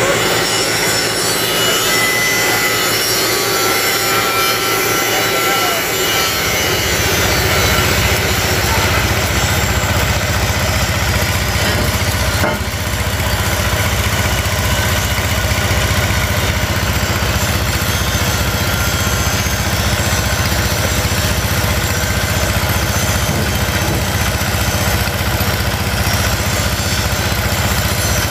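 An engine running steadily, with a low even pulse that sets in about six seconds in, under the loud noise of metal repair work. Before it, higher noise with a few thin whining tones.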